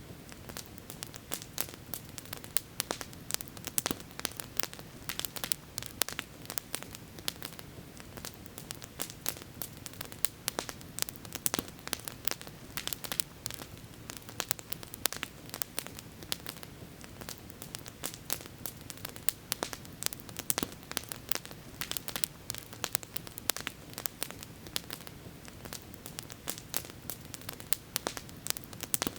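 Campfire crackling: dense, irregular pops and snaps of burning wood, over a steady low rush.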